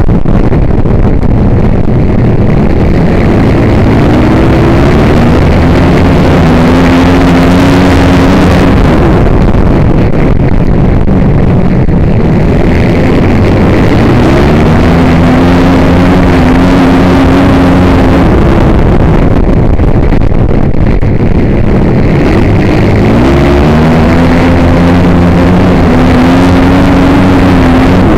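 Flat track racing motorcycle engine heard up close on board, loud. Its pitch climbs steeply as the bike accelerates out of a turn three times, about nine seconds apart, holds high, then drops away into the next corner.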